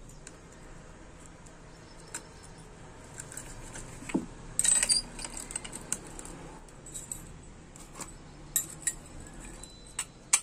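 Clutch plates of a TVS 50 moped engine being stacked onto the clutch hub: scattered light metallic clinks and clicks, with a cluster of louder clinks about halfway through and a few single clicks near the end.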